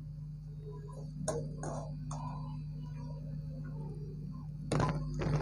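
Steel lid handled over an aluminium cooking pot: a few light metal clicks, then a louder clink of metal on metal near the end, over a steady low hum.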